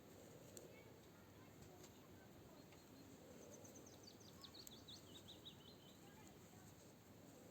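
A songbird singing faintly: a quick run of short high notes that steps down in pitch, a few seconds in, over quiet outdoor background hiss.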